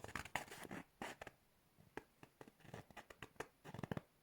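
Faint rustling and scattered small clicks of a waterproof jacket's fabric being handled and turned over.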